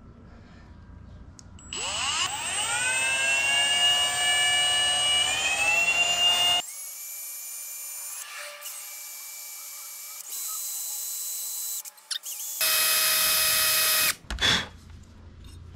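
Milwaukee M18 cordless drill with a 3/32-inch bit drilling a small hole into the side cover of an e-bike's rear hub motor. The motor whine rises as it spins up about two seconds in and then holds steady. It drops to a quieter whine midway, comes back as a loud burst near the end, and is followed by a few knocks.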